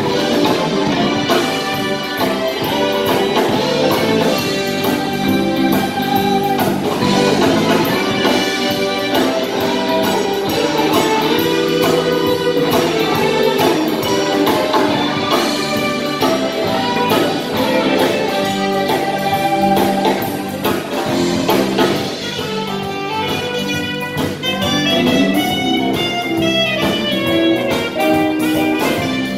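Jazz band playing live: saxophones, electric guitars, keyboard and drum kit together, with a steady beat.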